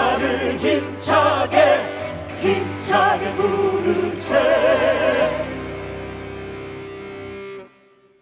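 A group of singers with backing music at the close of a Korean protest song. The voices sing and hold notes with vibrato, then the accompaniment sustains a final chord that cuts off abruptly about seven and a half seconds in.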